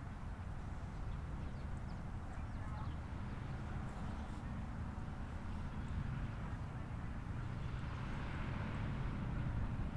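Steady low rumble of road traffic with no siren sounding, swelling near the end as a vehicle draws closer.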